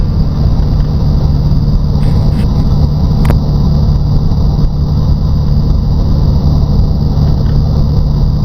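Steady, loud engine drone with a strong low hum and no change in speed, and a single click about three seconds in.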